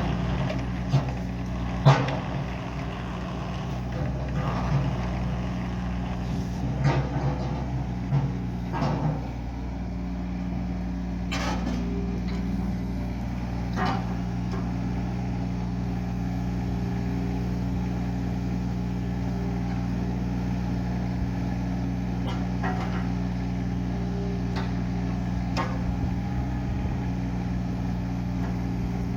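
Diesel engine of a Daewoo Solar 030 tracked mini excavator running steadily, with several sharp metallic knocks in the first half.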